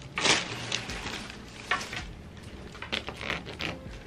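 Packaging rustling and crinkling as a wool knit cardigan is pulled out and unfolded by hand: several quick crinkly rustles, the loudest just after the start.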